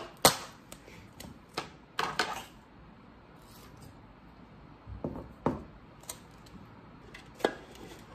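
Duct tape being pulled off its roll and cut with scissors: a few short rips and snips, the longest about two seconds in, then a quiet stretch and a few more sharp clicks and snips.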